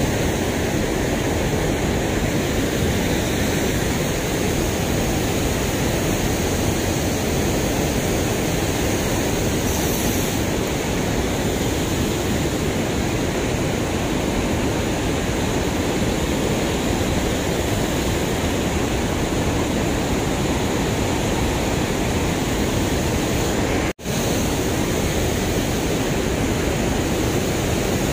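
Steady rushing of river water pouring over a concrete weir, an even roar of falling water, broken once by a momentary dropout near the end.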